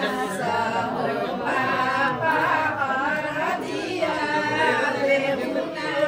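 A group of voices singing together without instruments, several voices overlapping.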